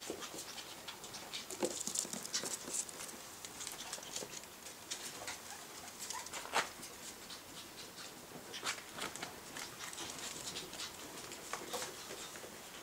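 Norwich terrier puppies playing, scuffling with quick, irregular pattering and scratching sounds and a few sharper clicks, the loudest about six and a half seconds in.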